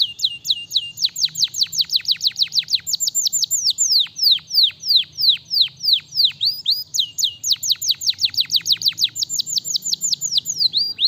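Domestic canary singing a long, fast run of repeated whistled notes, each sweeping sharply down in pitch, about five or six a second, the pace and pitch shifting a little along the way.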